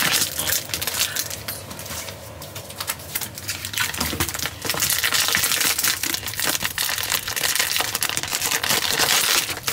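Clear plastic packaging crinkling and crackling as it is handled and cut open with small scissors, with many sharp little clicks; it quietens for a moment about two seconds in, then picks up again.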